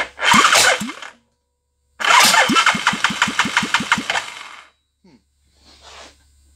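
Hisun 500 UTV engine turned over by its electric starter without catching: a short crank that stops after about a second, then a longer crank of about two and a half seconds with a regular chug of compression strokes, about four or five a second. It is a no-start with spark, fuel and compression, the engine just re-timed after a sheared key.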